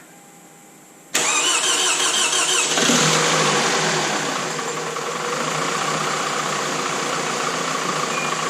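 Toyota Camry engine started for the first time after a head gasket repair: it fires about a second in, runs up briefly with rising pitch, then settles into a steady idle.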